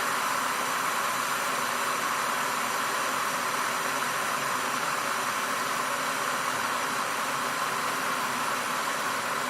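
Water boiling in an electric kettle: a steady, even hiss.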